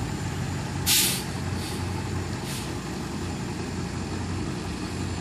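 Truck engines running steadily during a pull attempt on a stuck semi. About a second in there is a sharp hiss of air, then two fainter hisses, typical of a semi's air brakes.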